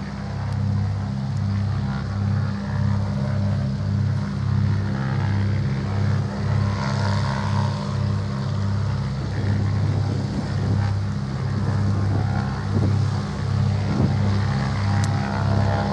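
Britten-Norman BN2 Islander's twin piston engines idling on the ground with their propellers turning: a steady low drone with a regular pulsing throb, which slows in the second half.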